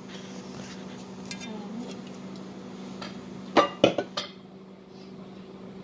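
Tableware clinking and knocking at a meal, with a quick cluster of four sharp clinks and knocks a little past halfway as a drink can is handled on the table. A steady low hum runs underneath.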